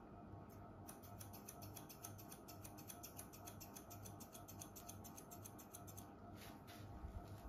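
Hair-cutting scissors snipping into a held section of long hair: a quick run of faint snips, several a second, then a few slower snips near the end.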